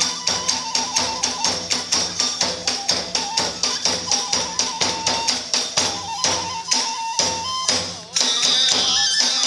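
Iwami kagura ensemble playing: a fast, even beat of about five strikes a second from drums and small brass hand cymbals, under a high bamboo flute melody. About eight seconds in, the beat breaks off and sustained ringing and flute carry on.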